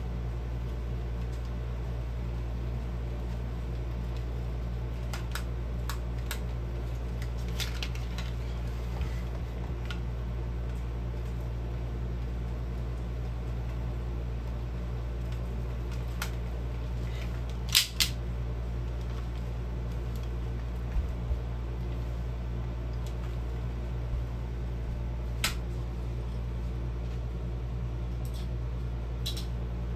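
Steady low hum with scattered light clicks and taps from plastic toy pistols being handled and twirled; the loudest is a sharp double click about 18 seconds in.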